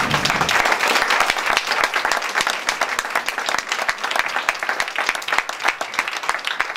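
An audience applauding, a dense patter of many hands clapping that is fullest in the first couple of seconds and thins slightly after.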